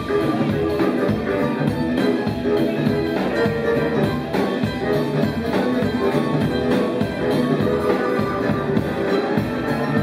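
A live rock and roll band playing: electric guitar with drums.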